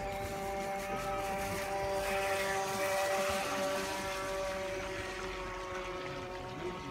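Motor of a radio-controlled model boat running across the water with a steady whine, growing louder toward the middle and easing off near the end.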